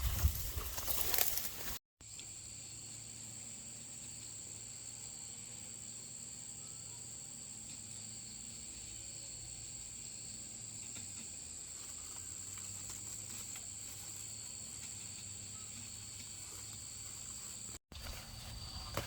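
Insects droning steadily in a high, even pitch, with rustling at the start and near the end.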